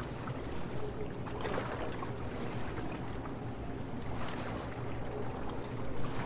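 Steady low drone of a passing boat's motor on the lake, with two soft swells of rushing noise over it.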